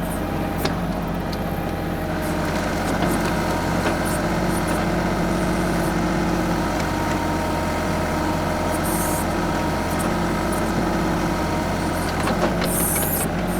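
The 25 hp diesel engine of a TYM 2515H compact tractor runs steadily while its BH150 backhoe works. A few short knocks come through, and twice, about nine seconds in and near the end, there is a brief high hiss or scrape.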